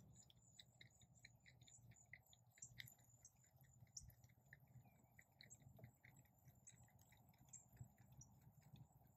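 Near silence: faint outdoor ambience with soft, regular high chirps about three times a second and a faint steady high tone.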